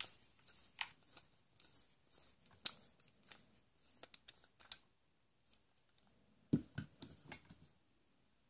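Faint scattered clicks and light rustling, with a few louder low knocks about six and a half to seven and a half seconds in.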